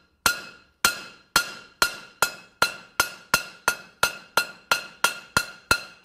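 Hand hammer striking a steel rivet on an anvil, peening it over to set a skillet's handle: a steady run of about fifteen sharp, ringing metal strikes that speed up from under two to about three a second.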